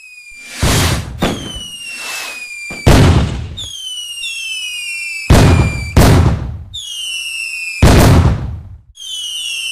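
Fireworks going off: about six sharp bangs with rumbling tails. Several are followed by a whistling tone that slowly falls in pitch.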